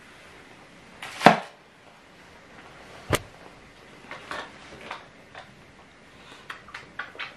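Handling noises as a cat is picked up and held: a loud bump about a second in, a sharp click about two seconds later, then scattered rustles and a run of small clicks near the end.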